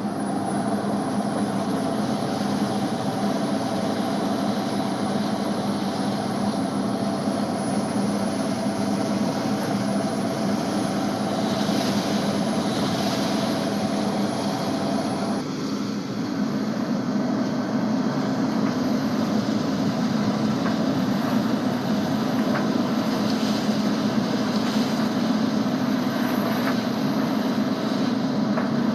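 A fishing boat's engine drones steadily under a wash of gale wind and sea noise. About halfway through, the engine's higher tones drop away and the drone shifts.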